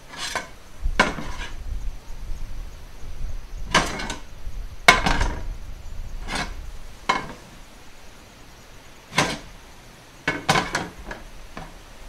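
About a dozen short, irregular knocks spaced unevenly, the loudest about five seconds in, over a low wind rumble that eases off around the middle.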